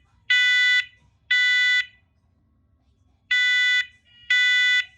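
Combination smoke and carbon monoxide alarm sounding its test in the temporal-three smoke pattern. It gives loud, high-pitched half-second beeps: the last two of one set of three, a pause of about a second and a half, then the first two of the next set.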